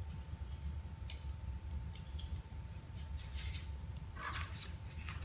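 Scalpel knife blade cutting into a paper photocopy on a cutting mat: a string of short, irregular scratchy strokes as small marks are trimmed out, over a steady low hum.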